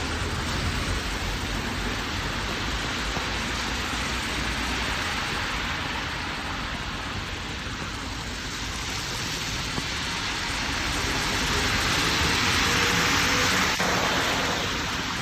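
Steady rain falling, an even hiss. It grows louder about three-quarters of the way through and then eases off.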